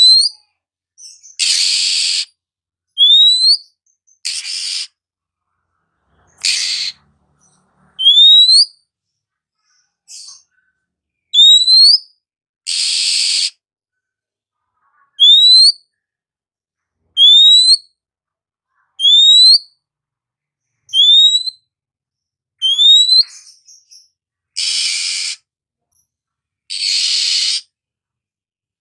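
Oriental magpie-robin (kacer) singing: a clear rising whistle repeated about every two seconds, alternating with short harsh, raspy notes.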